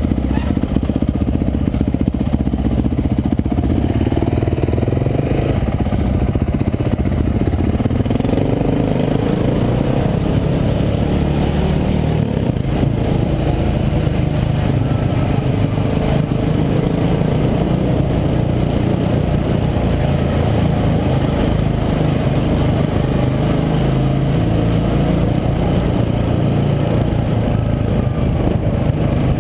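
Dirt bike engine running under way, climbing in pitch as it revs up a few seconds in, then holding a steady drone.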